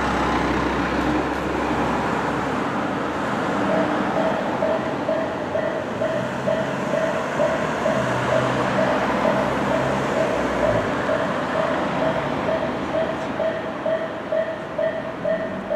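Road traffic running past a railway level crossing. About four seconds in, the crossing's electronic warning bell starts ringing, a repeated clang of roughly two strokes a second, warning of an approaching train.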